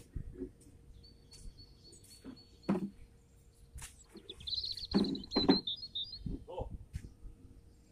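A bird calling: a thin, high, steady note early on, then a quicker, wavering run of chirps in the middle, with a few dull knocks underneath.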